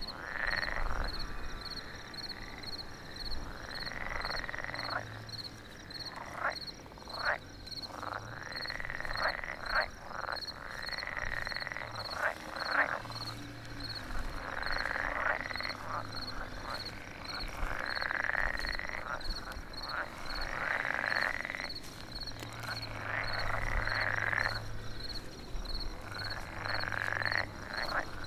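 Designed night-forest ambience of frogs croaking in repeated calls of a second or two each, over a steady, evenly pulsing high tone.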